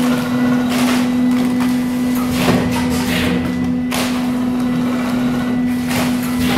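Auger filler powder packing machine running: a steady motor hum with short bursts of hiss and clatter about once a second as it cycles through filling and sealing pouches.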